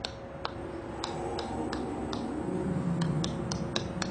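Sharp human tongue clicks, about three a second, made while echolocating: the clicks are bounced off objects on a table so their echoes show where the objects are and what shape they have.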